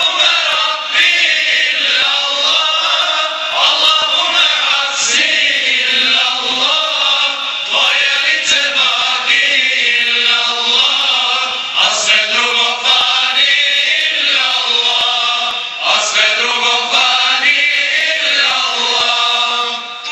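Small choir of men singing an ilahija, an Islamic devotional hymn, together into microphones, held phrases rising and falling without a break.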